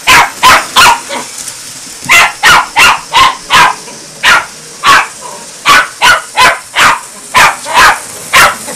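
Yorkshire terrier barking over and over at a running toy train engine, in quick runs of about three sharp barks a second, with a short pause a second or so in.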